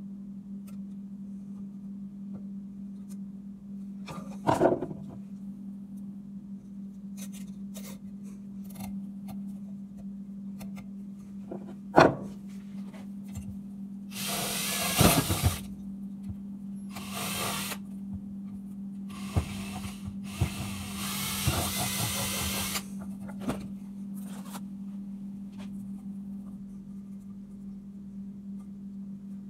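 A cordless drill boring into PVC pipe in short bursts of one to two seconds, several times over the middle of the stretch. A couple of sharp knocks come before it, and a steady low hum runs underneath.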